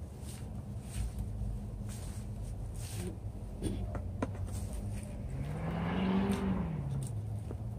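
A motor vehicle passing by: its engine note and road noise swell, rising then falling in pitch, loudest about six seconds in, over a steady low hum.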